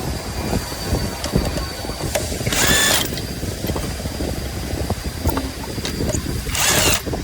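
Workshop noise: a steady low rumble with scattered clicks and knocks, and two short hissing bursts of about half a second each, about 2.5 and 6.6 seconds in.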